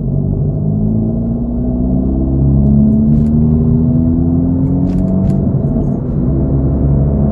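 Hyundai Veloster N's 2.0-litre turbocharged four-cylinder engine and exhaust droning as heard inside the cabin while driving, with a low steady drone whose pitch rises gently around the middle.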